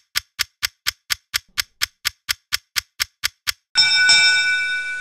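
Clock-ticking sound effect, about four even ticks a second, which stops a little before the end. Then a chime sounds, several held tones over a hiss, fading out, marking the poll results being revealed.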